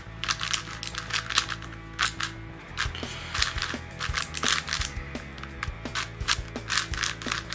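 A MoYu AoShi GTS M 6x6 magnetic speed cube being turned by hand: a quick, irregular run of plastic clicks and snaps as the layers turn. The cube is very tight out of the box, so even the middle layers turn reluctantly.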